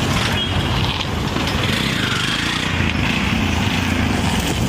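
Auto-rickshaw engine sound running steadily, a rough small-engine idle.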